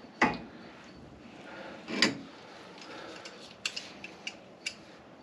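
Metal clinks from pliers working the spindle nut and its notched locking sleeve on the front wheel hub: two louder clinks, one just after the start and one about two seconds in, then a few lighter ticks.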